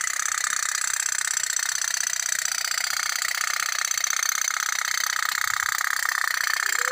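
Toy pop-pop steam boat running: a rapid, steady putt-putt ticking from its small tin boiler engine.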